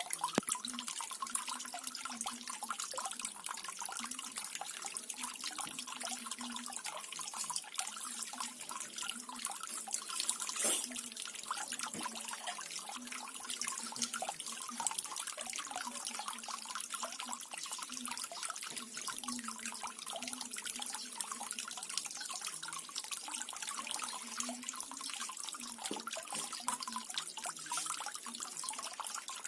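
Small garden waterfall, water trickling and splashing steadily with many small drips.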